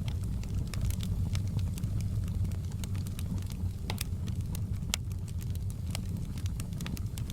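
Fireplace wood fire burning: a steady low roar of the flames with irregular sharp crackles and pops, two louder pops about four and five seconds in.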